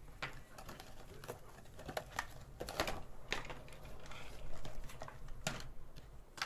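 Hard plastic puzzle pieces clicking and knocking irregularly, a dozen or so sharp clicks: a Rubik's Twist's segments being turned and set into a structure with a Rubik's 4x4.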